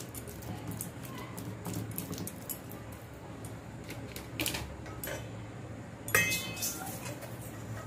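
Stainless steel kitchenware knocking and clinking: scattered light taps and clicks, then one sharper metallic clink about six seconds in that rings briefly.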